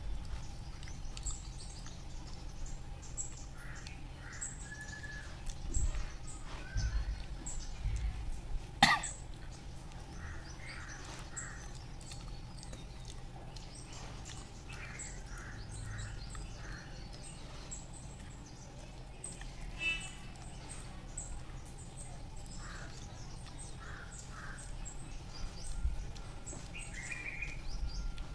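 Birds calling in the background, short calls every few seconds, over a steady low hum. There are a few low thumps, and one sharp click about nine seconds in.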